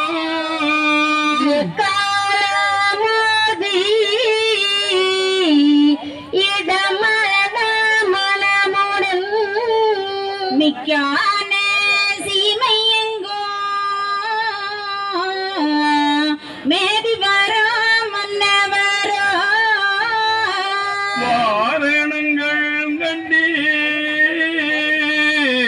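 Devotional singing: a voice sings long, wavering held notes in slow phrases with brief breaks between them, in the manner of Ayyavazhi scripture chanting.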